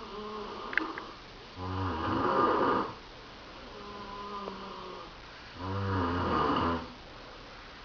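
A person snoring in slow, regular breaths: two loud rasping snores about four seconds apart, one starting about one and a half seconds in and one near the end, with quieter breathing between them.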